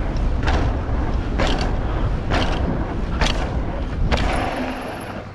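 Mountain bike rolling down a set of stairs: a steady low rumble of tyres and wind, with a sharp knock about once a second as the wheels drop off each step, five in all. The rumble eases near the end.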